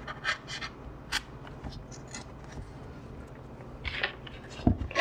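Hobby knife blade cutting EPP foam: a few short, scratchy strokes in the first second or so, then lighter scraping. A dull thump near the end.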